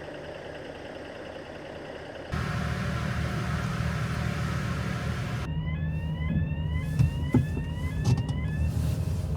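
A vehicle running steadily with a low hum that jumps to a louder, deeper rumble a couple of seconds in. In the second half a quick series of short rising chirps and a few sharp clicks sound over it.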